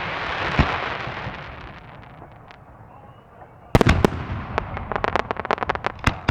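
Fireworks bursting: a fading rumble with one bang early on, then a volley of loud bangs past the middle, followed by a quick run of crackling pops.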